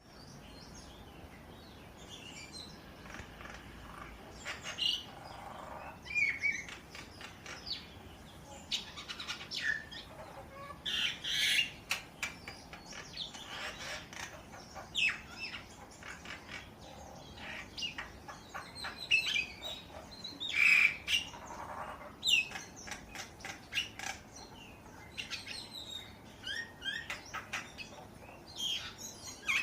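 A bird calling in a varied run of sounds: chirps, short whistles and sliding notes mixed with clicky, rattling strokes, coming in irregular bursts with short pauses between.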